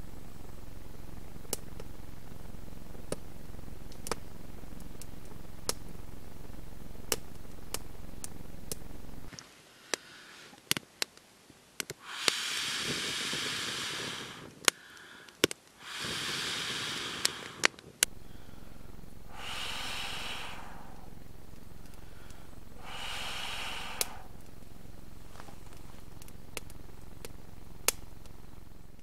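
Small wood campfire crackling, with scattered sharp pops. In the middle comes a quieter stretch broken by breathy rushing sounds, with two more such rushes later on.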